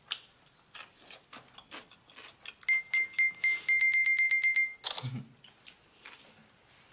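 Smartphone beeping: a few short high beeps, then a held beep of about a second with rapid clicking through it, as a phone camera takes a selfie. A thump follows about five seconds in, with faint clicks and rustles around it.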